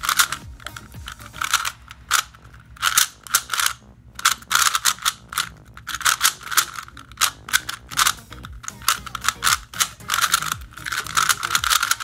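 Plastic Rubik's brand speed cube being turned rapidly in a speed solve: quick spurts of clacking layer turns separated by brief pauses.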